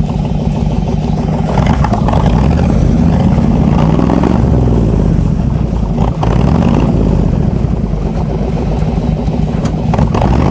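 BRDM-2 armoured car's engine running and being revved up and down while the vehicle sits stuck on its belly, with a brief dip about six seconds in.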